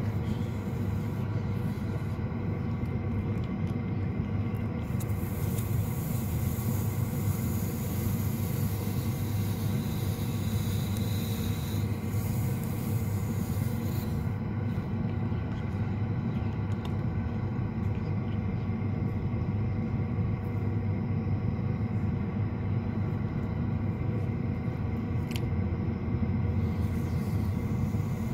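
Electric motor driving a potter's wheel, running with a steady, even hum while a clay cooking pot spins on it.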